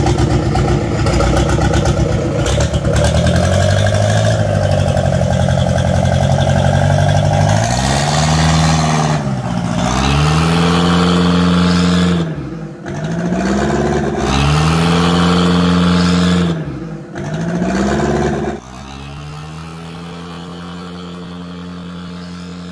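Mitsubishi 4D31 four-cylinder diesel engine of a wooden cargo boat running hard under load, its revs rising and falling several times as the throttle is worked. It becomes quieter and steady for the last few seconds.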